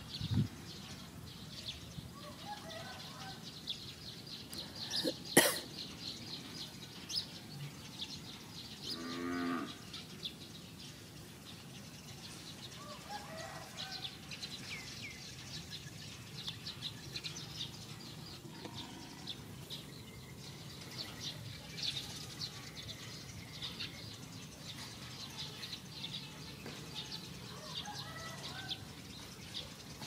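Outdoor birdsong, with many small chirps throughout. A sharp knock sounds about five seconds in, and a cow moos once, briefly, about nine seconds in.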